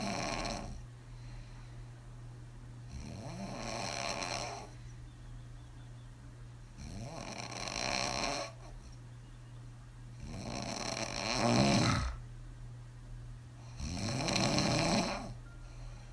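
A woman snoring hard on her back with her mouth open, her lips blowing out on the breath. A long snoring breath comes about every three and a half to four seconds, four of them plus the tail of another at the start, the loudest about two thirds of the way through, over a steady low hum.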